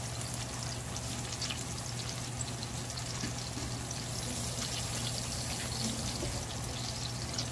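Egg-coated sole fillets frying in hot olive oil in a pan: a steady sizzle with scattered small crackles, over a steady low hum.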